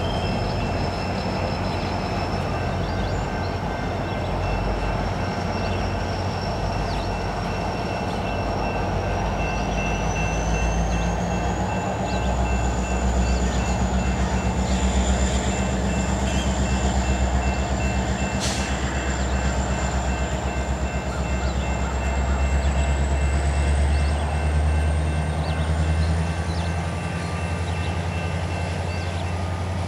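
CN SD70M-2 diesel locomotive running as it slowly moves a long freight train, its engine hum growing louder from about twelve seconds in. A faint high whine rises slowly in pitch throughout, with one sharp click past the halfway point.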